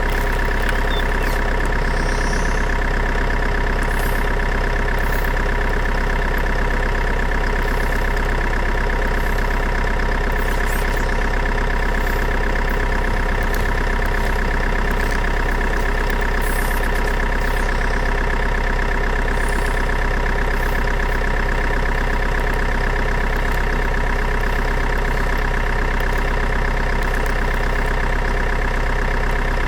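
Engine idling, steady and unchanging, a constant whine over a low rumble.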